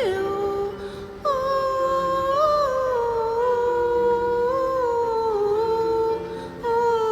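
A woman humming a slow hymn melody in long held notes that glide gently between pitches, with a short break about a second in, over soft sustained backing chords.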